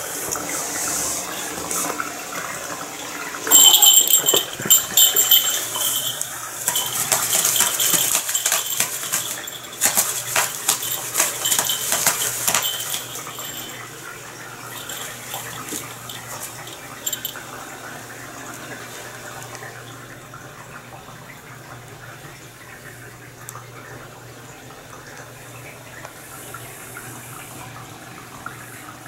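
House cats romping: a run of scratching, scuffling and clattering noises for several seconds, then it goes quieter with a low steady hum behind.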